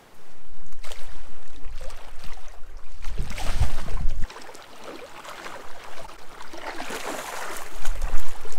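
Water splashing and rushing around a canoe under way, with wind buffeting the microphone in gusts, heaviest about three to four seconds in and again near the end.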